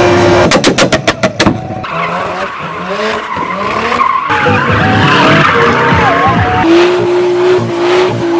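Car engines revving hard during burnouts and drifts, with tyres screeching as they spin on the pavement. About half a second in comes a rapid run of sharp cracks lasting about a second. Near the end an engine is held at steady high revs.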